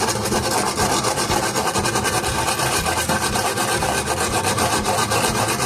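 Sandpaper rubbed fast back and forth over a refrigerator's evaporator tubing, stripping old paint to bare metal so the brazing will take. It is a continuous rasping of rapid strokes that stops abruptly at the end.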